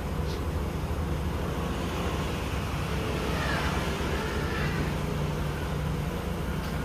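Steady low mechanical hum in a tyre workshop, with a few faint squeaks about halfway through.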